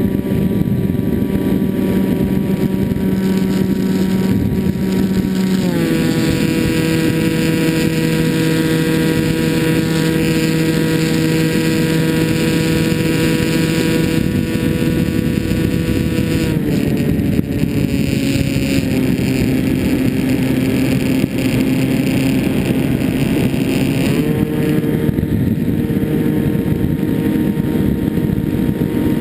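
Finwing Penguin FPV plane's electric motor and propeller whining steadily in flight, with a rush of air over the onboard microphone. The pitch steps down about six seconds in, drops again around 17 seconds as the throttle is eased, then rises around 24 seconds.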